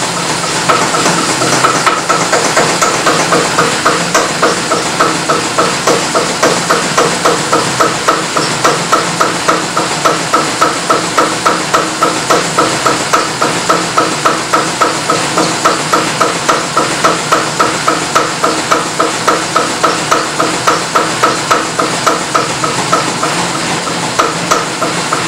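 Homemade Hvid compression-ignition engine running on diesel with an even, regular knocking beat over a steady hiss. It barely runs and is still being helped round by its belted electric motor, because it is not making enough power to keep running on its own.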